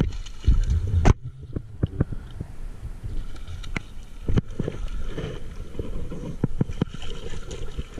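A hooked catfish splashing and thrashing at the water's surface on the line, with scattered sharp knocks and clicks. A heavy wind rumble on the microphone fills about the first second, then cuts off suddenly.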